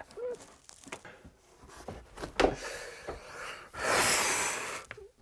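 A man's heavy, upset breathing: a short whimper near the start, a knock about halfway through, then one long loud sigh about four seconds in.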